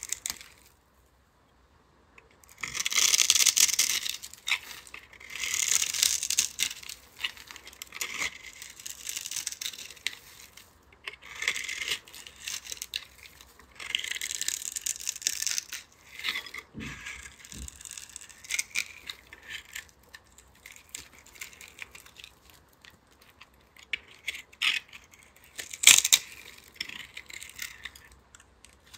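Utility knife blade cutting bars of soap, scoring a grid and shaving off small cubes: dry, crisp scraping in repeated runs of one to two seconds, starting a couple of seconds in, with a sharp click near the end.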